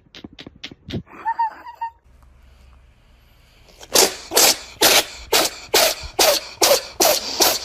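A cat letting out a fast run of loud, sneeze-like huffs, about two to three a second, starting about four seconds in after a few light clicks.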